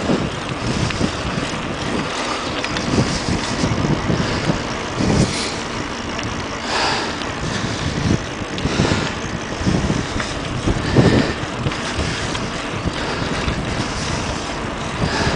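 Wind buffeting the microphone while riding a bicycle along a paved path: a steady rushing noise with uneven gusts and occasional bumps.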